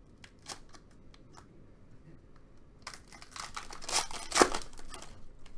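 A 2017 Panini Donruss Optic football card pack's wrapper is torn open by hand. A few light crinkles come first, then about two seconds of loud crackling as the wrapper tears and crumples, loudest near the end.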